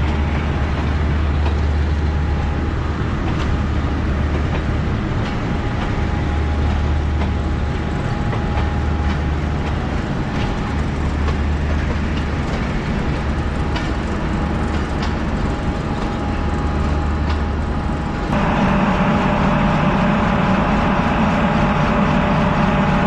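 Diesel-hauled passenger train rolling past along the platform, with a steady low engine throb and the wheels clicking over the rail joints. About eighteen seconds in, the sound suddenly becomes louder and fuller, with steady engine tones.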